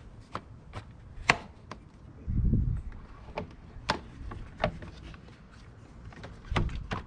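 Rubber air intake duct and its plastic fittings being pushed onto the airbox and throttle body by hand, giving scattered sharp clicks and taps, the loudest a little over a second in. Two short dull thumps come about two and a half seconds in and near the end.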